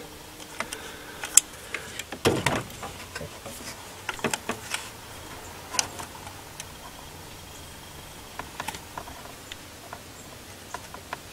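Small metallic clicks and scrapes of a steel pick working at a tiny retaining clip inside an open car distributor. Irregular ticks come thick in the first half, with a sharper knock about two seconds in, then thin out to occasional taps.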